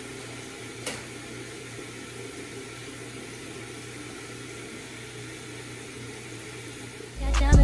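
Steady low hiss with a faint hum, with one sharp click about a second in. Hip-hop music with a heavy bass beat comes in loudly near the end.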